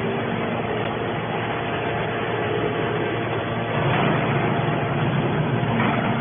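Hydraulic metal baler running with a steady, noisy mechanical drone.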